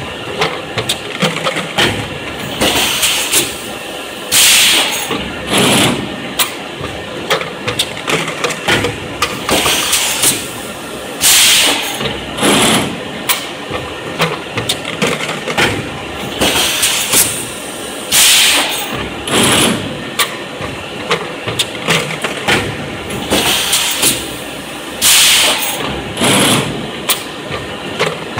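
Fully automatic four-cavity PET bottle blow moulding machine running through its cycles: steady mechanical clatter and clicking from the preform chain and bottle grippers, broken by loud hissing blasts of compressed air that come in pairs about a second apart, repeating roughly every seven seconds.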